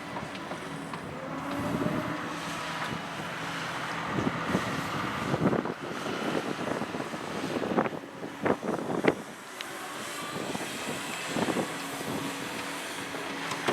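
Heavy construction machine's engine running steadily, with a cluster of sharp clanks and knocks about midway.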